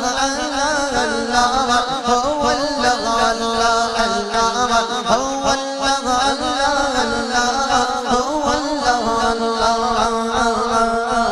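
A man sings a naat, an Islamic devotional song, through a PA microphone in long, ornamented, gliding phrases. A steady low drone is held underneath.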